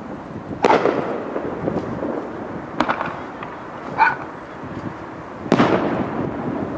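Aerial fireworks shells bursting: two big booms, each followed by a long fading rumble, about half a second in and again near the end, with a sharp crack in between. A short pitched cry sounds about four seconds in.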